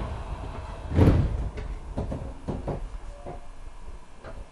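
Sliding doors of a Tokyu 2000 series commuter train closing, with one heavy thud about a second in followed by several lighter knocks and clunks, over the low hum of the stopped train.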